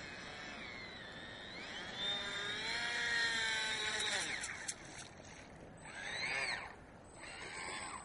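Motor of a small radio-controlled offshore racing boat whining as it runs on the water: the pitch rises as the throttle is opened about two seconds in, drops away after about four seconds, then swells and falls again twice as it passes.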